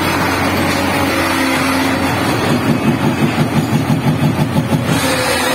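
Tata Hitachi excavator running with a steady engine drone. For about two seconds in the middle a rapid rhythmic pounding comes in, roughly five beats a second, then stops abruptly.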